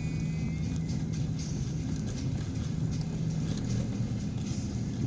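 Steady engine and road hum heard from inside a moving vehicle, a low even drone.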